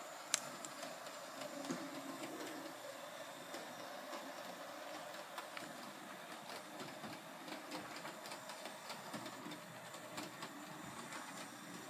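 Hornby GWR 0-4-0 OO-gauge model locomotive running around the track under DC control: a faint steady whirr of its small electric motor and wheels, with light irregular clicks and one sharp click about half a second in.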